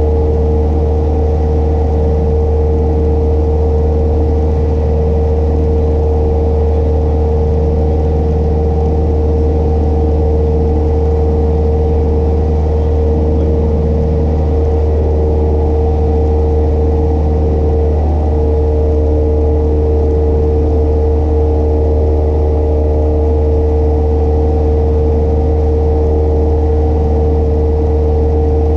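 Cessna 172 Skyhawk's piston engine and propeller running steadily in flight: a constant loud drone with a steady hum, its pitch wavering briefly once about two-thirds of the way through.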